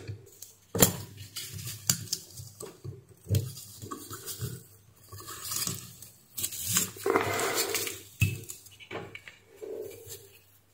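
Hands handling an opened steam iron's metal soleplate and its wiring: scattered light clicks and metallic clatter, with a longer stretch of rubbing and scraping a little past the middle.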